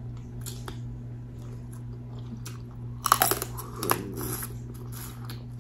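Close-up mouth sounds of a person eating sauce-drenched seafood boil: chewing with soft wet clicks, and a louder cluster of smacks about three seconds in.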